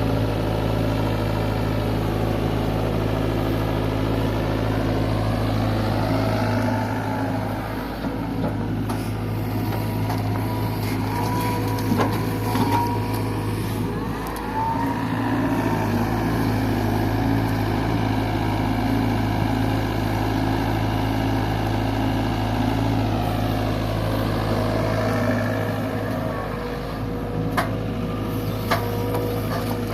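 Diesel engine of a JCB 3DX backhoe loader running steadily, its pitch rising and falling several times as it works under hydraulic load, with a few sharp knocks.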